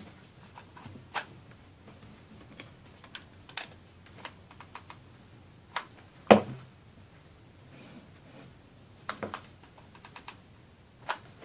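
Irregular light clicks and taps from handling craft materials on a work surface, with one louder knock about six seconds in.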